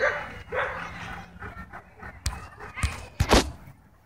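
A dog's brief high cries in the first second, then several sharp knocks and rustles right at the microphone, the loudest about three seconds in.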